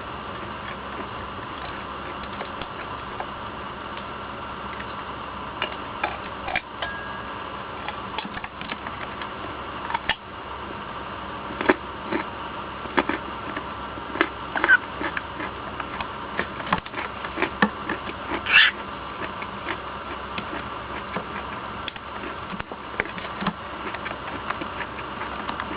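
Irregular small clicks and taps, a few sharper ones, over a steady background hum and hiss.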